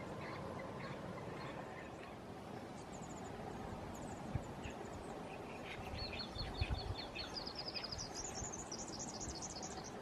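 A small songbird singing over a steady low outdoor rumble: scattered chirps, then about six seconds in a fast run of short notes that climbs in pitch over some three seconds.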